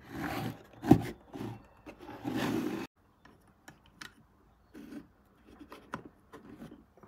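A plastic battery-pack box being slid and turned on a wooden tabletop, a rubbing sound with a sharp knock about a second in. It cuts off suddenly, followed by faint clicks and rustles as a USB charger and cable are plugged into a power strip.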